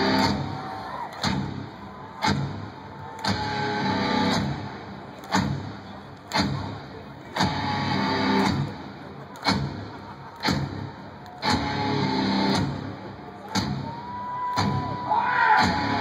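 Live rock band playing through a concert PA, recorded from the crowd. It is a slow, heavy beat with a hard hit about once a second, guitar chords swelling between the hits, and a long held note near the end.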